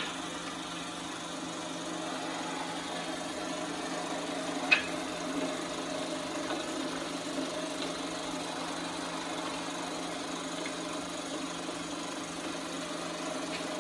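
16mm film projector running: the steady whirr of its motor and film transport, over the hiss and hum of the print's optical soundtrack, with one sharp click about five seconds in.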